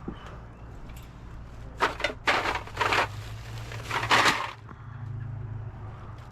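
A few short bursts of crunching, rattling noise, the loudest near the end, over a steady low hum.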